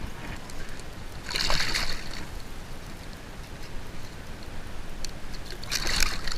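Water splashing in two short bursts, about four seconds apart, over a steady low wash of moving water.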